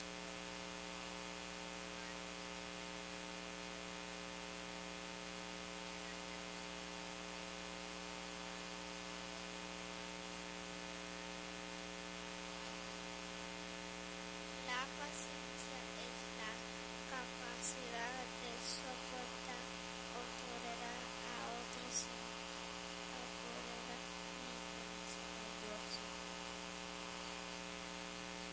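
Steady electrical hum and buzz from a sound system, with a rich row of overtones. About halfway through come a few sharp clicks and faint murmuring.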